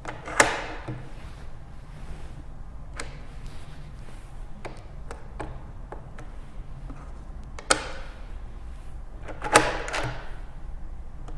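Door and smart door lock being worked by hand: a series of sharp clicks and knocks with a little ringing after them. The loudest come about half a second in, about two-thirds through and near the end, with lighter taps between.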